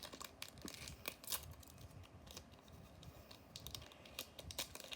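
Crinkling and tearing of a foil trading-card booster pack, with light clicks and rustles of cards being handled.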